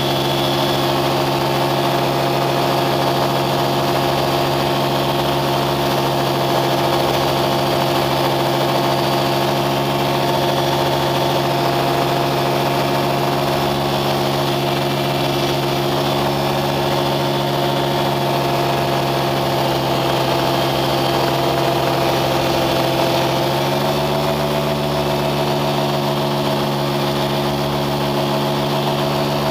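A vehicle engine running steadily at constant speed. About three-quarters of the way through its note steps up slightly, then holds.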